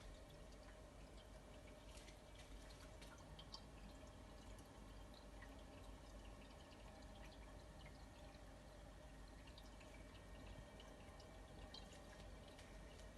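Faint, irregular drips and ticks over a steady low hum, from a 3D electric fireplace running.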